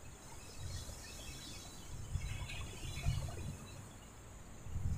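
Wind buffeting the microphone in uneven gusts, over the faint hiss of choppy waves breaking and washing onto the shore.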